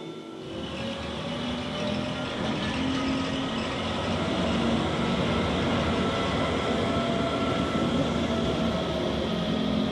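New Stuttgart 'Zacke' rack-railway railcars, two coupled together, running on the rack line: a steady rumble of wheels and rack gearing with a faint hum from the electric drive.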